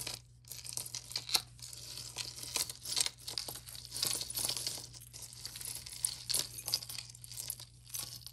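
Costume jewelry being rummaged through by hand: a continuous crinkling rustle with many small metal pieces clinking and ticking against each other.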